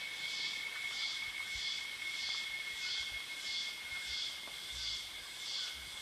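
Loud chorus of jungle insects: a steady high whine under a high buzzing that swells and fades nearly twice a second.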